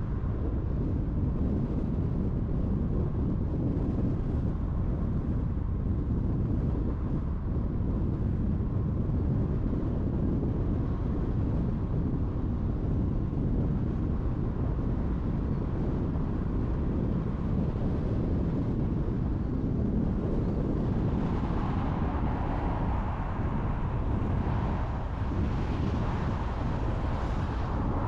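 Steady road and tyre noise of a car driving on a highway, a low even rumble. From about twenty seconds in, a brighter hiss swells up and fades near the end.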